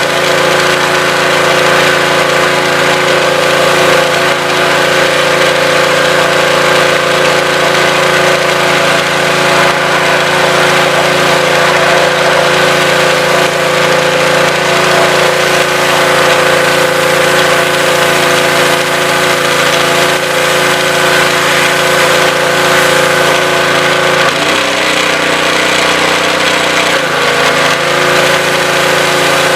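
Honda GX200 single-cylinder engine on a pressure washer with a newly fitted pump, running steadily on a test run. About 24 seconds in, a lower tone joins for a couple of seconds and then drops away.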